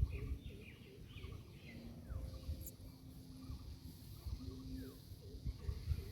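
Small birds chirping: short, repeated downward-sliding calls over a constant low rumbling background.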